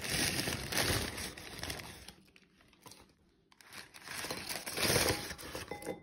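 A food bag crinkling and rustling as it is handled and emptied into a bowl, in two spells: one at the start lasting about two seconds, and another from about four seconds in.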